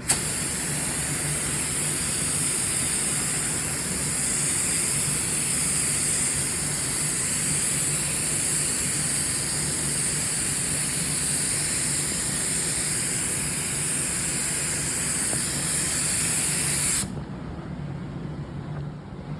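Two-part polyurethane automotive clear coat being sprayed onto headlight lenses: a steady hiss that cuts off suddenly about seventeen seconds in, leaving a faint low hum.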